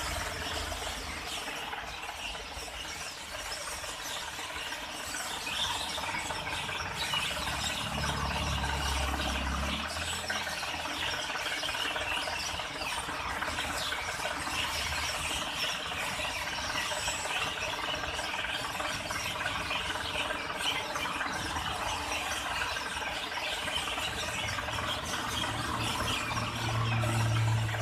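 A dense, steady chorus of high chirping and rasping from the lamp-lit trees. A low engine rumble rises under it twice, about eight seconds in and near the end.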